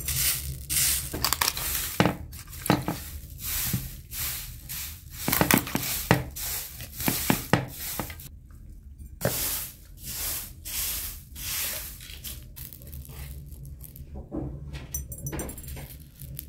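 Dried mung beans being raked and sorted by hand on an aluminium tray, rattling and clinking against the metal in short swishes. Later, a knife cuts through raw chicken on a wooden board, with sharp knocks and clicks.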